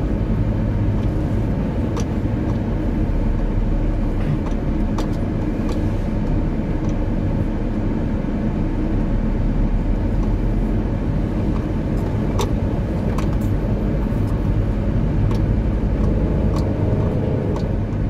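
Car driving along a dirt road: a steady low engine and tyre rumble, with scattered light clicks and rattles throughout.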